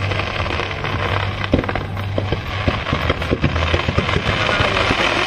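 Fireworks going off in a rapid, irregular string of pops and bangs, the loudest bang about one and a half seconds in.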